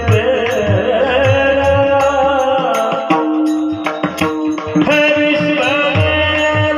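Devotional kirtan music: a voice sings a wavering, ornamented line over steady held tones, with regular high cymbal clicks throughout. Low drum strokes drop out for about two seconds near the middle, then return.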